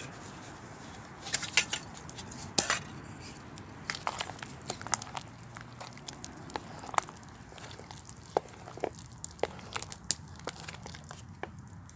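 Scattered clicks, taps and crinkling as a plastic instant onion mash pot is opened and emptied into a stew pot.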